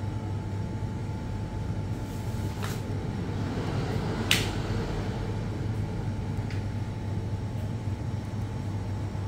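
Steady low hum of a shop's background machinery, with a few sharp clicks, the loudest about four seconds in.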